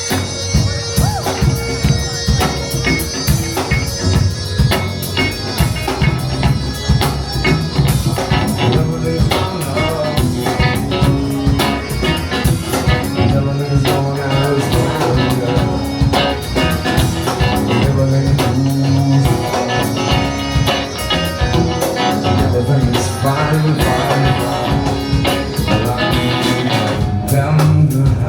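Live band playing loud and continuous: a steady drum-kit beat with bass and guitar.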